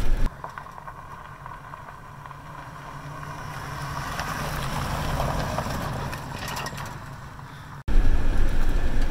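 2000 GMC Sierra 1500 pickup driving on a dirt road: its engine and tyres grow steadily louder to a peak about five seconds in, then fade. Near the end the sound jumps to louder engine and road noise heard from inside the moving truck's cab.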